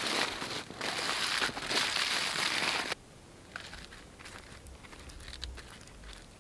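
Aluminium foil crinkling and crumpling as it is folded around a burrito by hand; it stops abruptly about three seconds in. After that only a few faint clicks are heard.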